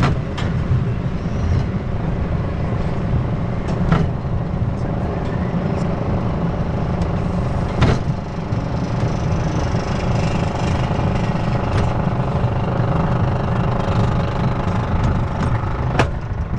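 Wildfire wooden roller coaster heard from the front seat: a steady low rumble with a droning mechanical hum and a few sharp knocks.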